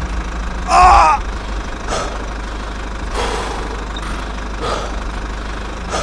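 Steady low motor hum from a small mini construction vehicle, with a short loud shouted exclamation about a second in and a few fainter brief noises after it.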